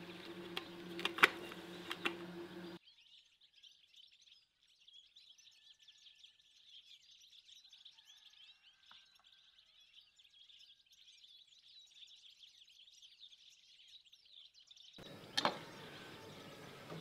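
Many small birds chirping faintly, a dense twittering of short calls. At the start and the end it is bracketed by a few sharp clinks of dishes, the loudest about a second in and another about fifteen seconds in.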